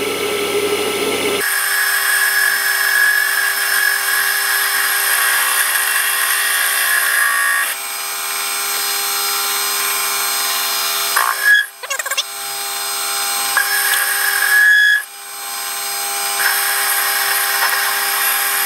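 Warco WM180 mini lathe running, turning a 12L14 steel bar at a 0.5 mm depth of cut: a steady motor and gear whine with the hiss of the cut on top. The sound dips briefly twice in the second half.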